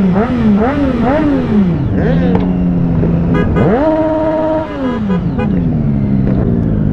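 Motorcycle engines revved in quick throttle blips, the pitch rising and falling about twice a second. About halfway through, one engine is revved up, held high for about a second, then falls away.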